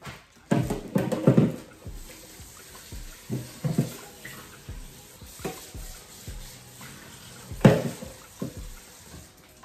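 Water from a kitchen tap running into the sink while raw shrimp are peeled and deveined. The water sound comes and goes unevenly, loudest nearly eight seconds in.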